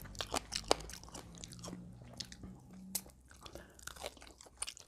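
Close-up eating sounds of crispy fried chicken: irregular sharp crunches of bites into the cornflour and breadcrumb coating, with chewing in between.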